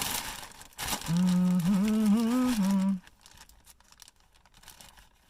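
A man humming a short tune for about two seconds. Before it there is a rustle of scissors and parcel packaging, and after it come faint snips as blunt scissors cut into the parcel.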